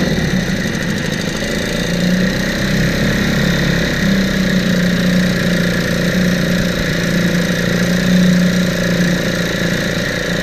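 Sears 4 hp two-stroke outboard motor, Eska-built, running steadily at a low idle in a test barrel, a good-running motor after its carburetor rebuild.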